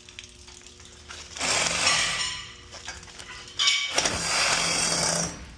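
Reciprocating saw (Sawzall) cutting through a pipe in two runs, the first about a second and a half in and the second lasting over a second near the end, with the motor's steady hum under the harsh cutting noise.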